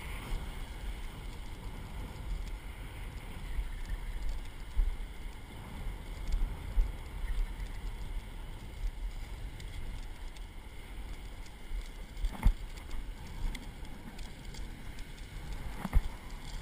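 Wind buffeting an action camera's microphone in uneven low gusts, with surf washing onto the beach behind it. Two sharp clicks come late on.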